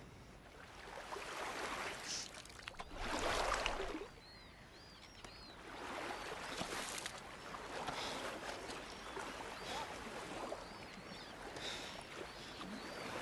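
Sea water washing and surging over a rock in slow swells, with a bird calling a quick run of short chirps twice.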